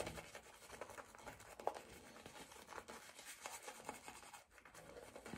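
Faint, irregular scratching of a shaving brush working up lather.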